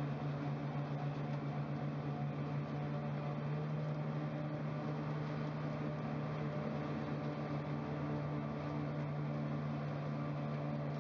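Slipform paver's engine running steadily: a constant low hum with an even mechanical noise over it, no change in speed.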